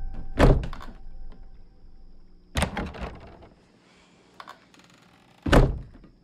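Three heavy, deep thuds spaced about two and a half to three seconds apart, each dying away over about half a second, with near quiet between them. They are typical of the impact hits cut into a horror-film trailer.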